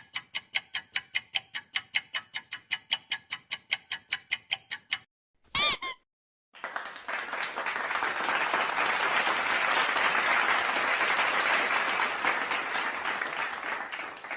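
Clock ticking quickly and evenly, about five ticks a second, which stops about five seconds in; a brief wavering high tone follows, then a crowd applauding that swells and fades out near the end.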